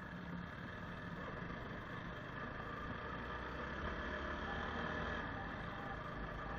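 Motorcycle engine running steadily at low speed as the bike is ridden slowly over a rough gravel track, growing slightly louder around four to five seconds in.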